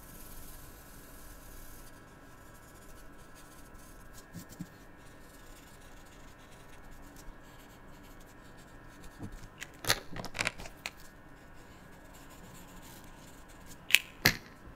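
Felt-tip marker scratching over paper as colour is filled in, with a few sharp clicks and taps: a cluster about ten seconds in and two loud ones near the end.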